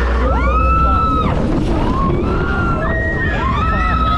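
Riders screaming on a swinging fairground freak-out ride: two long screams that rise, hold and fall, over a heavy low rumble of wind on the microphone.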